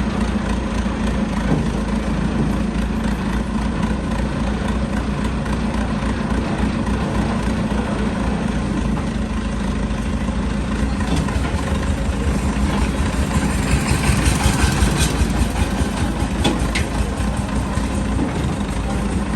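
Heavy vehicle engine idling steadily, with extra higher-pitched clattering noise for a few seconds past the middle.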